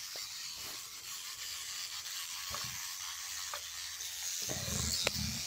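Electric toothbrush buzzing faintly as it brushes a dog's teeth, with a louder, deeper sound near the end.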